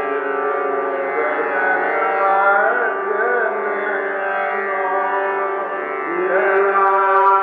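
Hindustani classical khayal in Raag Lalit: a male voice sings slow, ornamented notes over a steady tanpura drone, gliding up to a long held note about six seconds in.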